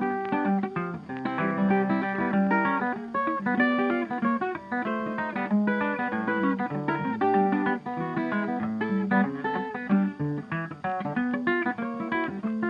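Background music: guitar playing quick plucked notes.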